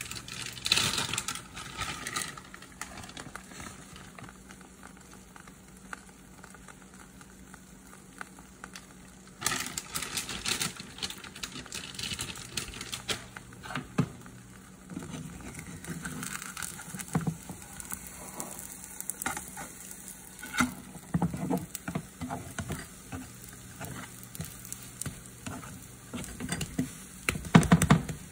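Crepe batter sizzling in a hot frying pan, with crackling that comes and goes in bursts. Near the end, a spatula scrapes and knocks against the pan as it slides under the crepe.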